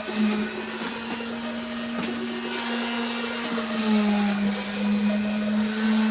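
Electric power sander running steadily on a speaker box, a steady motor whine with the scratch of sandpaper. Its pitch drops slightly a little past halfway through.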